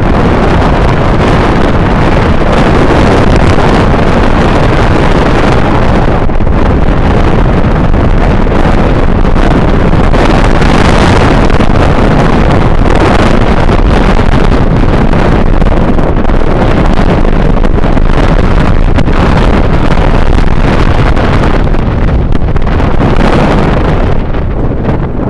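Heavy wind buffeting the microphone of a vehicle moving along a dirt track, mixed with the vehicle's engine and road rumble. It stays loud and steady and eases off slightly near the end.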